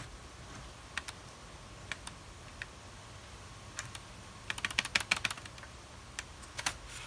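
Sharp plastic clicks and taps from a Dell Inspiron N5010 laptop's plastic case being handled and worked with a small screwdriver: single clicks at first, then a quick flurry of clicks a little past the middle.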